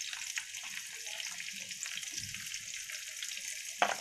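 Raw mango pieces frying in mustard oil in a pan: a steady sizzling hiss, with a few sharp knocks near the end.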